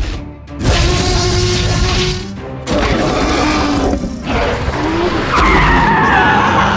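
Vehicle sound effects with tyres skidding, over background music, in several abruptly cut sections; a falling screech comes in about five and a half seconds in.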